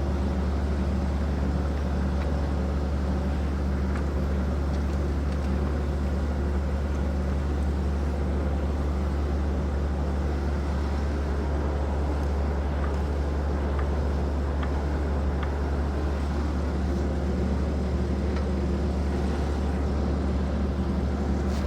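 Steady low mechanical hum of a running machine, unchanging throughout, with a few faint clicks.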